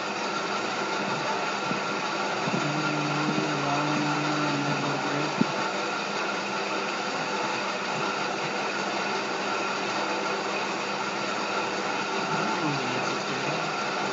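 Steady whirring background noise, like a fan running, with a short low hum from about three to five seconds in and a single click just after it.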